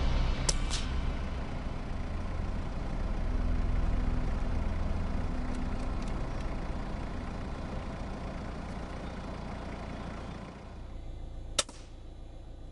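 A single shot from a moderated CZ 452 .22 rimfire rifle firing subsonic ammunition, a short sharp report near the end, over a steady low rumble. Two quick sharp clicks come about half a second in.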